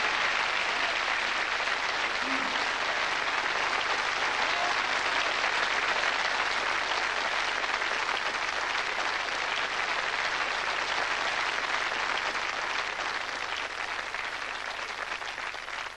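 Studio audience applauding steadily, fading away near the end.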